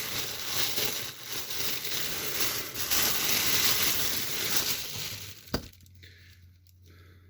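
Packaging crinkling and rustling as a peaked cap is pulled out and unwrapped, ending with a single sharp click about five and a half seconds in.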